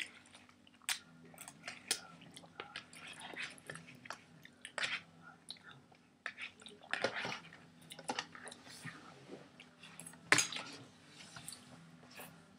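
Close-up eating sounds from people eating noodles: irregular chewing, smacking and small clicks of a fork in a takeout container, with a sharp knock a little over ten seconds in.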